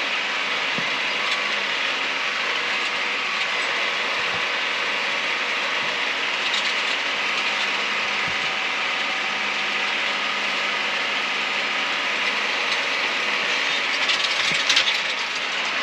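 Tractor running steadily while driving, with a constant mechanical rattle and occasional knocks; a brief louder clatter comes near the end.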